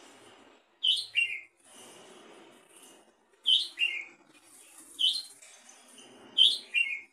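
Red-whiskered bulbul (jambul) calling: four short, loud phrases, each a higher note dropping to a lower one.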